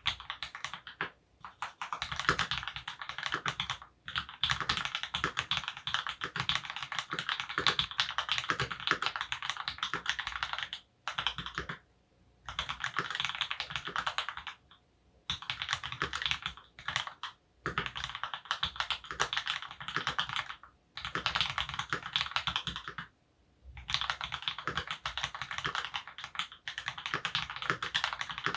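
Typing on a custom Monstargear XO K80 aluminium keyboard, sandwich mount with an FR4 plate, fitted with opblack switches lubed with Krytox 205g0 and dampened with Thinsulate and silicone. Runs of fast keystrokes several seconds long, broken by short pauses.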